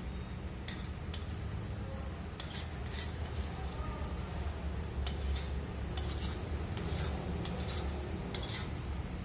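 A plastic spatula scrapes and clicks irregularly against a wok and a bowl as boiled noodles are scooped out. A steady low rumble comes from the wok of boiling water on its gas burner.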